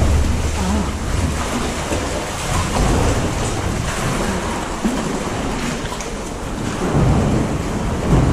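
Sea water surging and sloshing against rock inside a sea cave, a continuous wash of water noise with a deep rumble of the surge near the start and again about seven seconds in.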